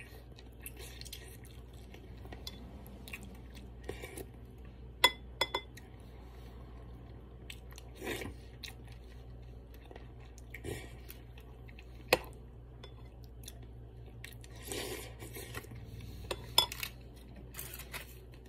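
Eating sounds: a soup spoon clinking against a bowl several times, three clinks in quick succession about five seconds in, with softer chewing and sipping between.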